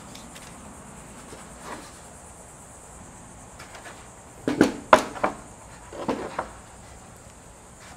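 Styrofoam cooler being handled on a workbench: a quick cluster of knocks and thumps about halfway through as it is lifted and set down on a board, and a few lighter knocks a second later. A steady high-pitched hiss runs underneath.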